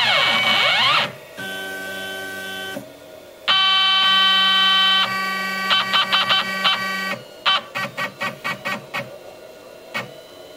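Stepper motors of a CNC machine whining at steady pitches during test moves, stopping and starting between moves. Near the end comes a run of short quick jogs, about five a second, and then a single click.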